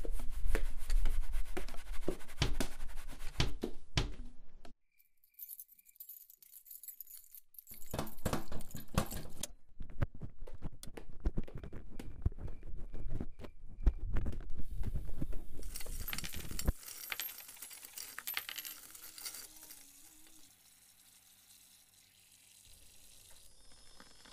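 Dense clattering and clinking of small hard objects in two long spells with a near-silent pause between them, with a few short high beeps. It fades to a soft hiss and then near silence towards the end.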